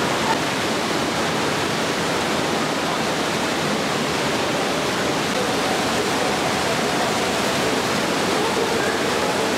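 Waterfall and fast stream water rushing over rocks, a steady, unbroken rush.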